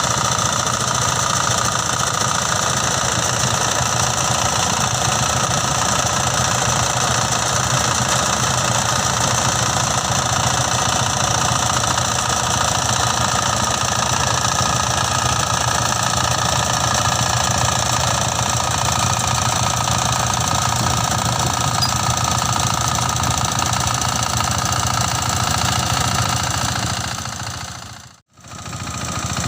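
Mini rice combine harvester running steadily, the engine's rumble with a steady high whine over it. The sound drops out briefly near the end.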